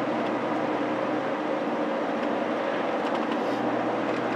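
Steady road and engine noise inside a moving car's cabin: an even rumble and hiss with a faint constant hum.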